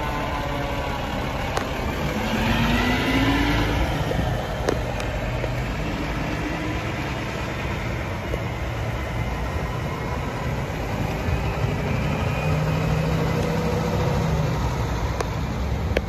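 Fire engine ladder truck's diesel engine running and pulling away. At the start a siren falls in pitch and winds down, and a brief rising siren tone comes about two seconds in.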